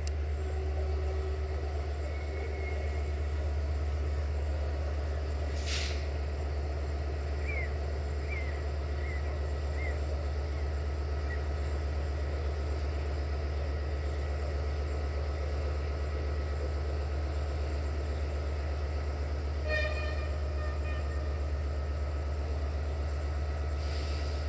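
Diesel locomotive idling at a standstill, a steady low throb. A short horn toot sounds about 20 seconds in, and there is a brief hiss of air near the end.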